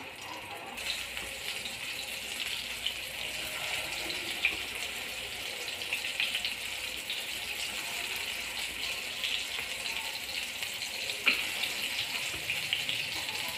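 Shami kebab patties of chana dal, chicken and potato shallow-frying in hot oil in a pan, giving a steady sizzle with small crackles. Two sharper pops stand out, about a third of the way in and near the end.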